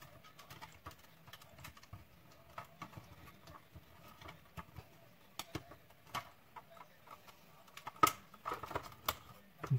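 Light, irregular clicking and rattling of small parts being handled and fitted together, with sharper clicks about eight seconds in and again a second later.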